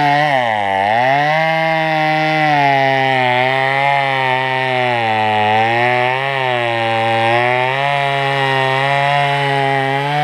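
Gas chainsaw running at high revs while cutting wood, its engine pitch sagging briefly several times as the chain bites and then picking back up.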